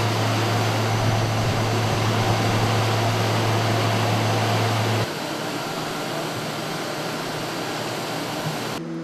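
Steady jet and machinery noise on an air-base flight line: a loud, even rush with a low hum under it. It cuts abruptly to a quieter rush about five seconds in, then to a hum with several steady tones near the end.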